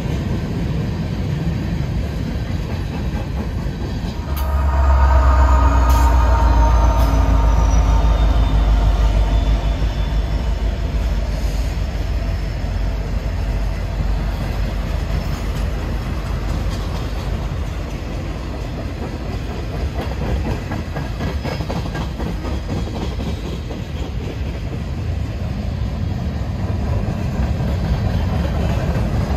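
Freight train rolling past: steel wheels clattering over the rail joints under a steady rumble. About four seconds in it swells into a louder, deep rumble with faint wheel squeal for several seconds, then settles back to the steady roll.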